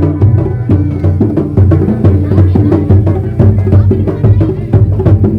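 Kuda lumping accompaniment music: drums and struck percussion playing a fast, steady beat over sustained low pitched tones.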